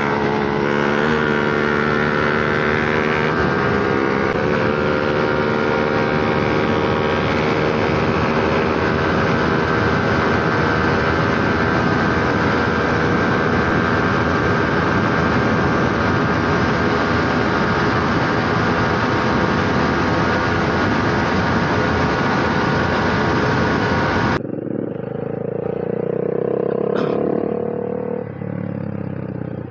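Yamaha R15 V3's single-cylinder engine running hard at highway speed in fourth, then fifth gear, its pitch climbing in steps in the first few seconds, under heavy wind rush on the microphone. About 24 seconds in, the sound cuts abruptly to a quieter stretch of slow riding.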